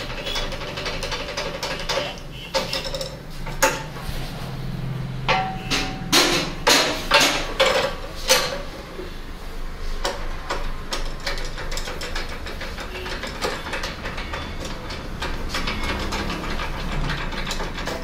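Metal clicks, knocks and ratcheting from hand tools and a lever-operated rig working on a car radiator core. About five to eight seconds in comes a run of sharper metal strikes, one ringing briefly, over a steady low hum.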